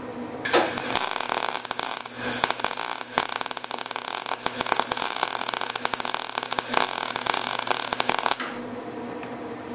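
MIG welder arc laying a test bead on a scrap of mild steel at turned-down heat. It crackles steadily for about eight seconds, starting about half a second in and cutting off near the end, over a faint steady hum. To an onlooker it didn't sound like the weld was getting penetration.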